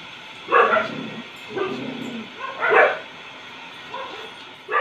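A large street dog giving about five short yips, the loudest about half a second in and near three seconds.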